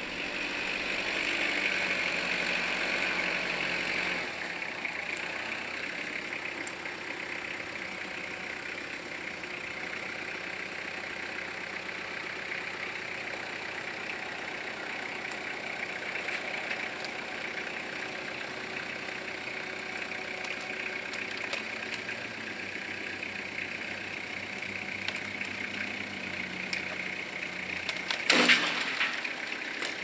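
Kubota L4600 tractor's diesel engine running steadily, a little louder for the first four seconds, while the tractor pulls a strap tied into a tree. A brief, loud, sharp noise stands out near the end.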